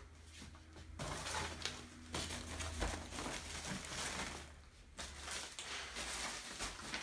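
Rustling and crinkling of monitor packaging, plastic wrap and a paper accessory envelope being handled in a cardboard box, in two spells with a short lull between them.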